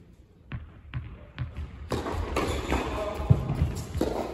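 Tennis ball bounced on an indoor hard court three times, about half a second apart, as a player gets ready to serve. From about two seconds in, louder background noise with voices takes over.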